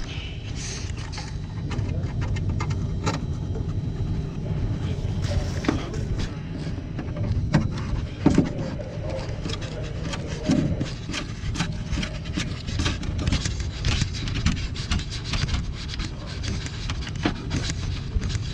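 Irregular clicks, knocks and rubbing from handling equipment, with a few louder knocks about eight and ten seconds in, over a steady low machinery drone.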